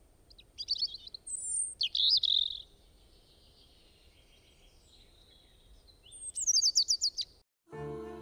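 Wild birds calling: two short bursts of quick, high chirping notes, then a fast run of high notes falling in pitch. Near the end the bird sound cuts off suddenly and soft background music begins.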